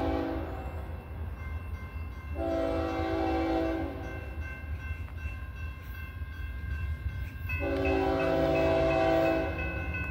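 Locomotive air horn of BNSF 6909 blowing for the grade crossing in separate chord blasts: one ends just as the sound begins, one comes about two and a half seconds in, and a longer one comes about seven and a half seconds in. Underneath run a low rumble and steady high ringing tones from the crossing bell.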